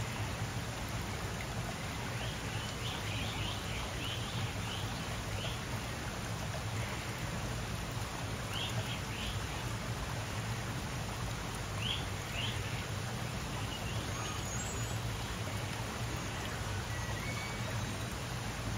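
Short, high bird chirps, first in a quick run of about eight, then in a few pairs, over a steady rushing background noise.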